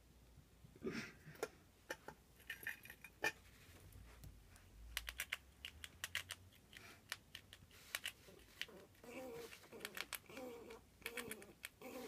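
Quick, irregular clicks and scratches from a grey squirrel scurrying over cardboard and a paper bag on carpet. A few soft voice-like sounds come in near the end.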